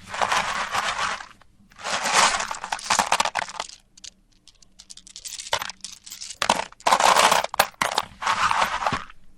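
M&M candies being ground in a meat grinder: their hard candy shells crack and crunch in repeated bursts of a second or two, with short pauses between, the longest about four to five seconds in.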